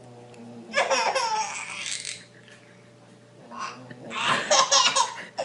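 A person laughing in two bouts, the second a run of quick pulses.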